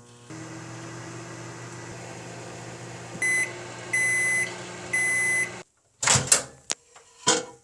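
Microwave oven running with a steady hum, then three long beeps signalling the end of the heating cycle, after which the hum stops. A few knocks and clunks follow near the end.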